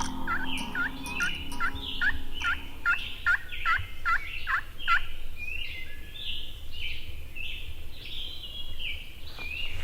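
Wild turkey calling, a run of about a dozen evenly spaced hooked notes at roughly two and a half a second over the first five seconds. Higher, shorter bird chirps repeat throughout.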